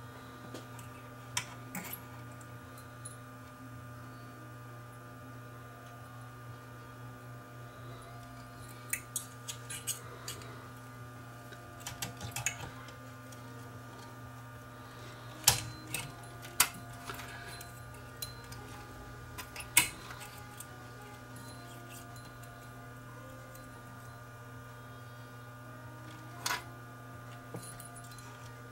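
Scattered small clicks, taps and rattles of fingers and a small screwdriver handling parts and wiring inside an opened Pioneer CTF500 cassette deck's chassis, over a steady electrical hum. The sharpest clicks come a little past halfway.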